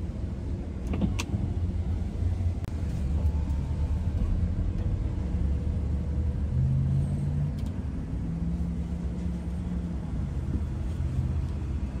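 Car engine and tyre rumble heard from inside the cabin as the car creeps forward, a steady low rumble with a light click about a second in.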